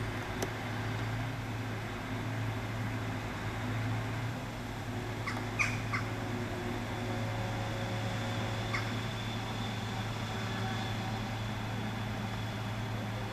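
Engine of a tree-felling crane truck running steadily with a low hum while its grapple-saw head holds the trunk, the saw not cutting; a few short clicks are scattered through.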